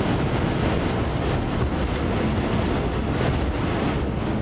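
Steady rumble of a car driving at speed, heard inside the cabin: tyre and road noise mixed with wind against the car in a dust storm.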